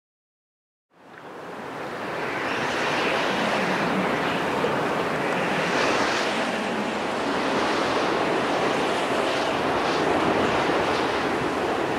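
Steady rushing wind that fades in from silence about a second in.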